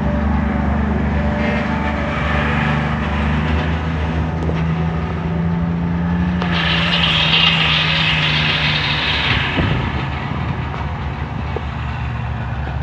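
Heavy diesel vehicles, trucks and a bus, running slowly past with a steady low engine hum. About halfway through, a louder hissing sound joins in for about three seconds.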